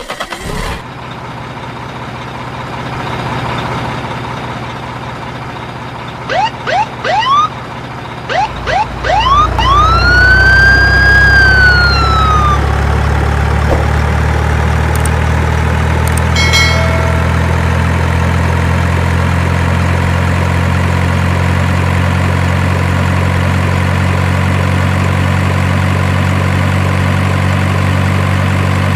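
Truck with a siren-style horn: a quick run of short rising whoops, then a long wail that sweeps up and falls away. Meanwhile a heavy engine starts running steadily and carries on, with a short horn blast partway through.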